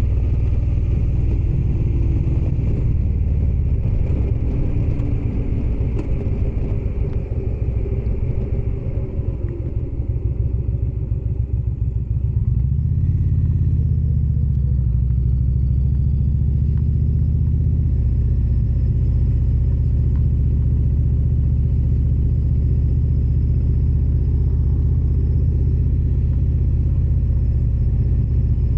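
Indian Springfield's V-twin engine running while the motorcycle is ridden, with road and wind noise. About halfway through the engine note shifts and rises, then holds steady.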